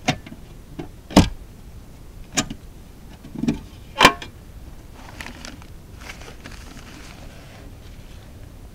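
Latch and lid of a metal ammunition can clanking open: a handful of sharp metallic clicks and knocks over the first four seconds, the loudest about a second in and about four seconds in. After that comes softer rustling as paper is handled.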